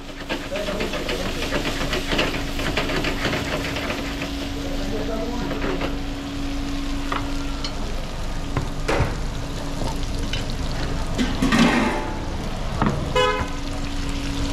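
Food sizzling as it fries, with a steady low hum under it and a few sharp knocks. A short horn beep sounds near the end.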